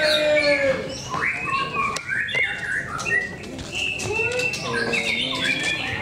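Many caged white-rumped shamas (murai batu) singing against each other, a dense mix of chirps and whistles. Men's drawn-out shouts rise over the birds at the start and again near the end.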